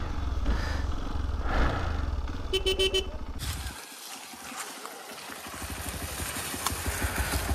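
Off-road motorcycle engine running with a rapid low pulsing as the bike climbs a dirt slope. About halfway through it drops away for a moment, then picks up again.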